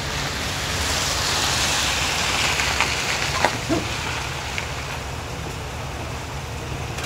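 Nylon tie-down strap being pulled and handled over a canoe on a roof rack: a swish of webbing that swells and fades in the first few seconds, then a few light clicks, over steady outdoor noise.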